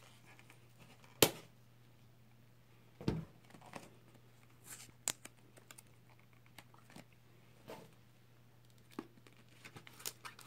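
A knife blade scraping and tapping at the edge of a cardboard phone box to cut its seal, with scattered sharp clicks and crinkles of cardboard and seal. The loudest is a single sharp click about a second in.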